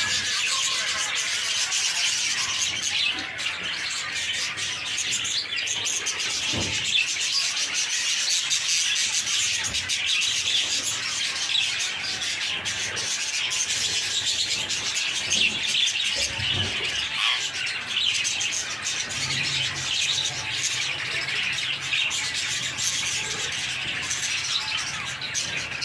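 Dense, continuous chirping and chattering of many caged birds, high-pitched and unbroken.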